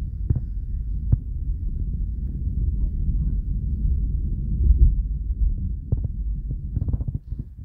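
Deep, throbbing rumble inside a moving car in a storm, from road and wind noise, swelling a little about halfway through, with a couple of short knocks early on the phone or car body.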